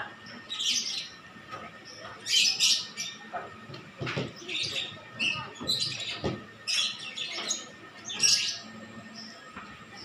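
Cockatoos calling in a string of short, high squawks, about one or two a second.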